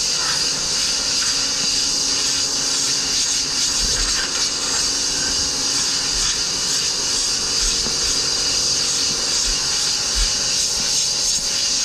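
Compressed-air blow gun hissing steadily as it blows foam dust off a surfboard blank.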